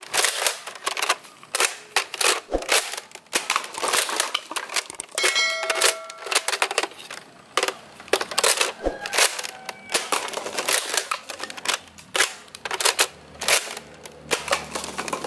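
Nerf Elite Trilogy pump-action blaster being loaded, primed and fired again and again: a long string of sharp plastic clacks and clicks, with darts striking plastic cups that clatter down.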